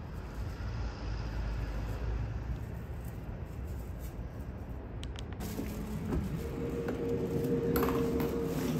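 Low, even outdoor street rumble with a few short clicks of footsteps. About two-thirds of the way in, a steady hum of several held tones sets in as the building entrance is reached.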